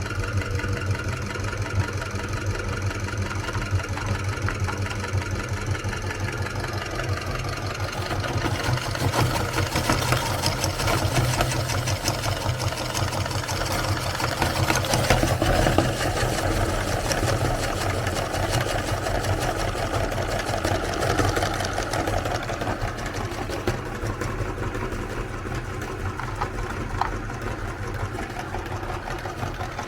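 Electric meat grinder motor running steadily, with dense crackling as Oreo cookies are ground; the crunching grows busier about eight seconds in.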